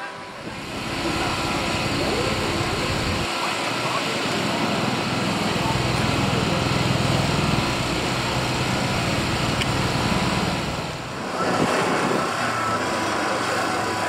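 An engine idling steadily, with a short dip about ten seconds in before it carries on.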